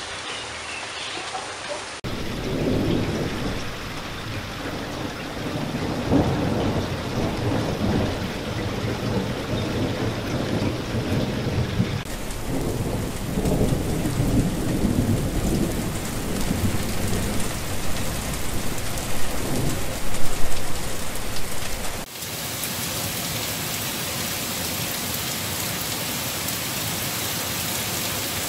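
Rain falling, with thunder rolling under it for most of the first two-thirds, loudest about twenty seconds in; then a steady heavy downpour alone. The sound changes abruptly a few times as one rain recording gives way to another.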